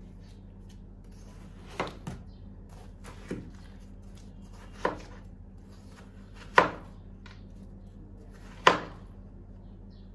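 Kitchen knife slicing through watermelon and knocking on a wooden cutting board, about six chops at uneven intervals; the two near the middle and near the end are the loudest.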